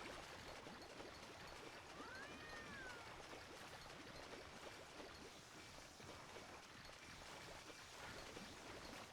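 Faint, steady rush of floodwater running after a mountain storm, with one short rising-and-falling animal call about two seconds in. The sound cuts off suddenly at the end.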